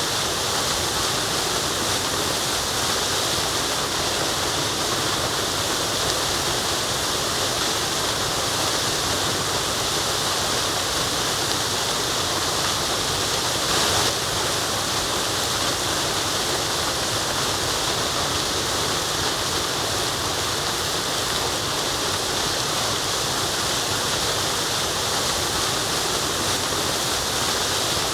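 Waterfall: a steady, even rush of falling water, with one brief slight swell about halfway through.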